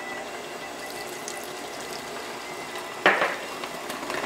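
Orange juice poured from a small glass bowl into cake batter in a glass mixing bowl. About three seconds in there is one sudden knock.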